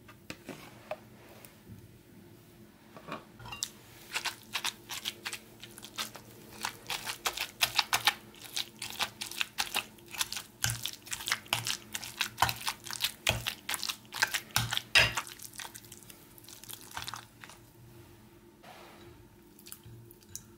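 A metal utensil mashing and stirring a wet cottage cheese, apple and egg mixture in a ceramic bowl: a fast run of clicks and scrapes against the bowl starting a few seconds in and stopping about three-quarters of the way through.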